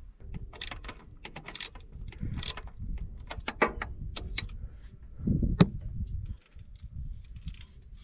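Metal tools clicking and clinking on the nut and post of a backhoe's starter solenoid as the nut is tightened, irregular small clicks with one sharp click about five and a half seconds in.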